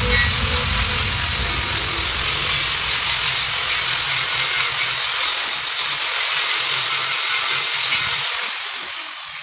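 Stick (arc) welding overhead on a steel gate rail bracket: a steady crackling hiss that fades out near the end as the arc is broken.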